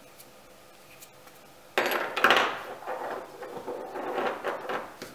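A metal chainplate is worked loose from its slot in a fiberglass boat deck and set down on the deck. It starts with a sudden clatter about two seconds in, followed by a few seconds of clinking and scraping metal.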